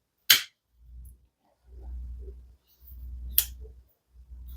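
Scorpco D2X folding knife being handled, with three sharp clicks of the blade and lock: one just after the start, one about three seconds later and one at the end. A low rumble of handling comes between them.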